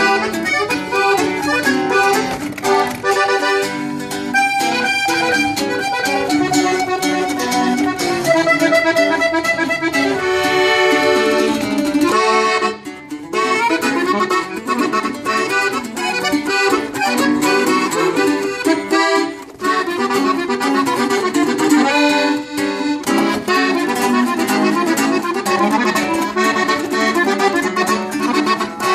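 An instrumental norteño polka played on a button accordion and a strummed double-strung bajo. The accordion carries the melody over a fast, bouncing rhythm, with brief breaks about 13 and 19 seconds in.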